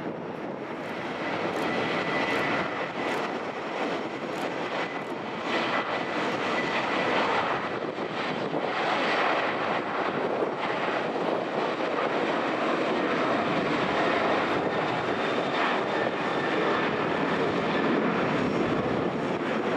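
Boeing 737-800 jet engines running as the airliner passes, a steady roar that grows louder over the first few seconds and then holds, with a faint high whine early on.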